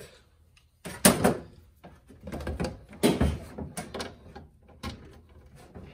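Handling noises of welding cables and their plug connectors being fitted to a small stick welder: a few sharp clunks and rattles, the loudest about a second in, with quieter gaps between.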